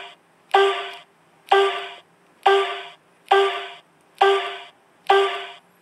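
Electric-scooter-style turn-signal sound effect from an add-on simulator module, played through its small speaker box: a short pitched tone that fades away, repeating about once a second in step with the blinker flashing.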